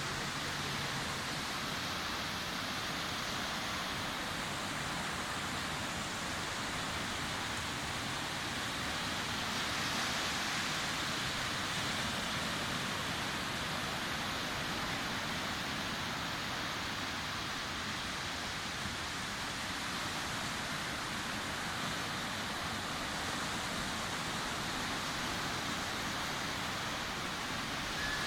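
Sea waves washing onto a beach, a steady rushing hiss of surf that swells slightly about ten seconds in.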